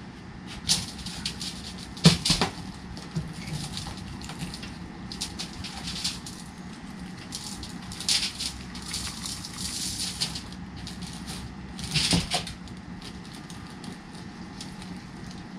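Seasoning shaken from a shaker bottle over trout on aluminum foil: short hissy shakes, the strongest about halfway through and again about three-quarters in, among light clicks and rustles of handling; a steady low hum runs underneath.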